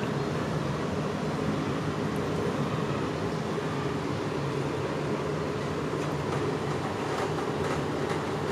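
A steady mechanical hum with a low drone, even in level throughout.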